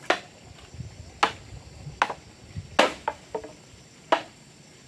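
Wooden club striking an upright bamboo pole: five sharp knocks about a second apart, with a couple of lighter taps between the last two.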